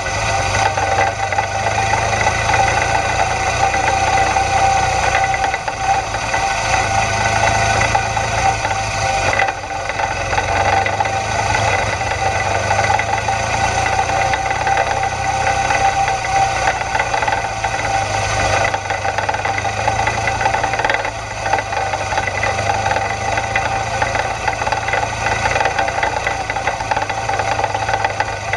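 Twin-cylinder engine of a BMW GS adventure motorcycle running at a steady pace on a gravel track, heard from on board; the engine note dips briefly twice, about a third and about two-thirds of the way through.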